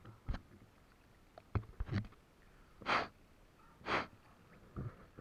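Two loud, rushing breaths right at the microphone, about a second apart, from a swimmer holding the camera to her face. A few short, low knocks come before and after them.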